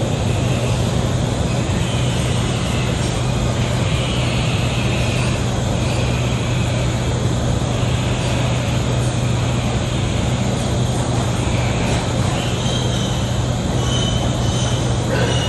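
A motor-driven machine running steadily with a loud, constant hum, with higher whining tones coming and going over it, mostly near the end.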